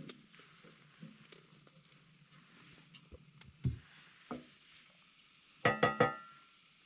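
Cooking clatter: a few light knocks and a thud, then three quick ringing metal clinks near the end, like a utensil striking a pan or pot.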